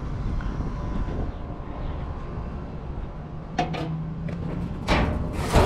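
Steel sliding side door of a commercial dumpster being worked open: a short scrape about three and a half seconds in, then two loud metal clanks near the end.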